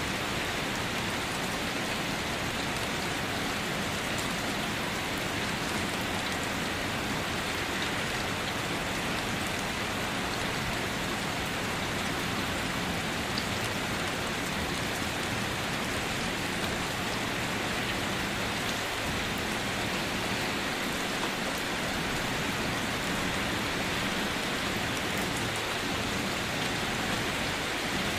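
Steady rain falling, an even unbroken hiss that does not change in level.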